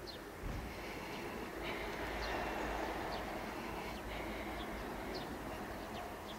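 A distant vehicle's low rumble swells and fades over a few seconds, while short high chirps repeat every second or so.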